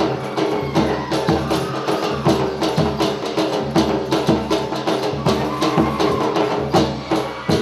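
Gujarati folk dance music: a melody over a fast, steady percussion beat.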